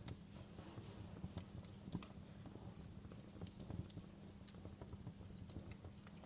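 Wood fire burning in a fireplace, crackling with irregular sharp pops and snaps over a low steady rumble; the strongest pop comes about two seconds in.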